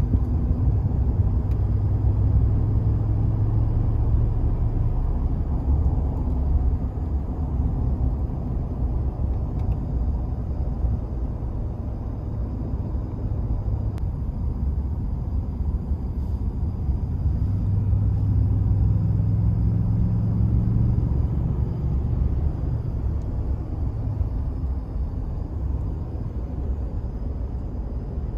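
A vehicle driving, with a steady low engine and road rumble that swells louder twice: a few seconds in and again about two-thirds of the way through.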